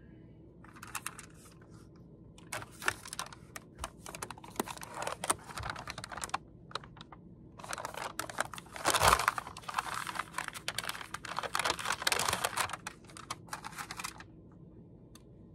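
Bursts of typing on a computer keyboard, with a paper bag rustling around the middle.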